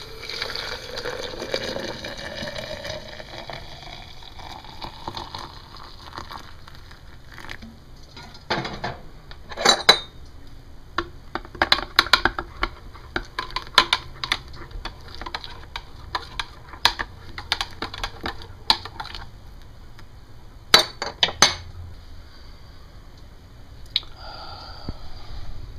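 Hot water poured from a kettle into a glass French press carafe, rising in pitch as the carafe fills. From about eight seconds in comes a run of sharp clinks as a spoon stirs the coffee grounds and knocks against the glass.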